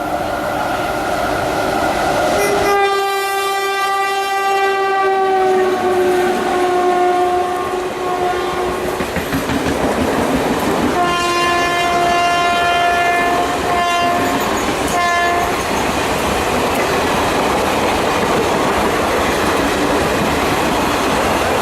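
WAM-4 electric locomotive's air horn: a long blast whose pitch drops partway through as the engine goes by, then a second long blast and a short toot. After that the passing coaches make a steady rolling noise with the clickety-clack of wheels over rail joints.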